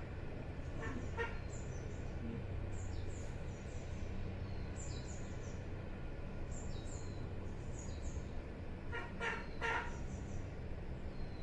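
Small birds chirping in short, high, falling calls, with a chicken clucking in a few short bursts about a second in and again near the end, over a steady low hum.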